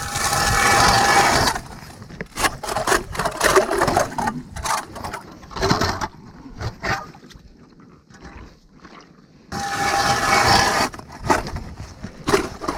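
Hand ice auger drilling through thin first ice: rough, crunching scrapes as the blades cut, loudest in a long stretch at the start and again about ten seconds in, with shorter irregular bursts between and a brief lull after the middle.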